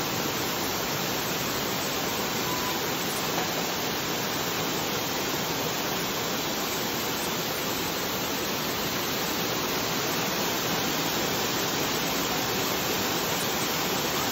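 Water curtain of a fountain falling steadily from an overhead canopy into a shallow pool: a continuous, even splashing.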